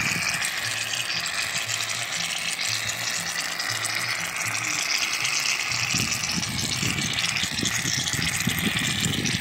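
Aerosol can of shaving cream spraying foam in one long, steady hiss onto glue in a foam plate, as shaving cream is added to the glue to make slime. The hiss turns rougher about six seconds in and stops abruptly right at the end.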